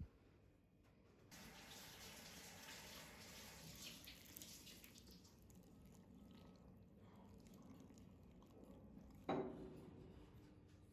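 Water running from a kitchen tap into a sink, starting about a second in, with a single sharp knock near the end.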